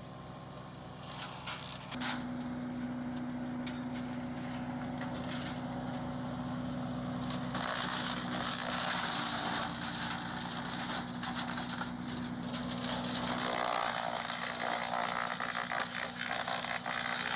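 Bandit 65XP disc wood chipper running, its engine note stepping up about two seconds in, with irregular crackling and snapping as dead lodgepole pine branches are fed through and chipped.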